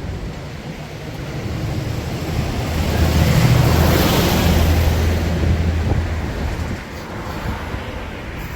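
A motor vehicle driving past, its engine hum and road noise swelling to a peak about four seconds in and then fading away.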